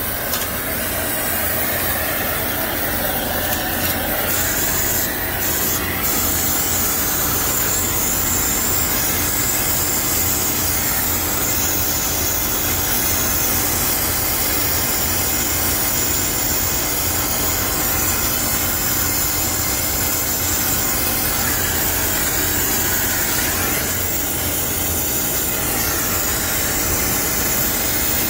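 Brazing torch flame hissing steadily as it heats a copper liquid-line joint.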